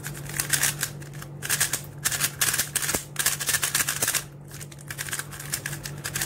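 A MoYu RS3M 2020 magnetic 3x3 speed cube being turned rapidly, fresh out of the box: quick runs of plastic clicking and clacking from the layers, with short pauses between runs. A steady low hum lies underneath.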